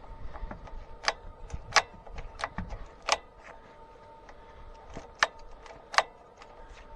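Sharp metallic clicks and clinks of hand tools on bolts and fittings, about six separate strikes spread out at irregular gaps, over a faint steady hum.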